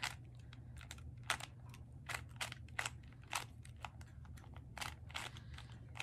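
2x2 Rubik's cube being turned by hand: quick, irregular plastic clicks as its layers snap round, about three or four a second.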